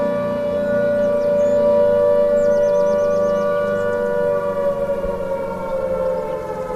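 Civil defense siren sounding one loud, steady tone, which starts to fall slowly in pitch about four seconds in.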